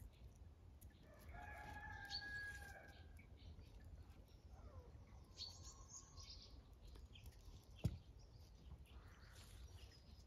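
Faint farmyard birdsong: a rooster crows once, held for nearly two seconds, starting about a second in, while small birds chirp. A single sharp click near the end is the loudest sound.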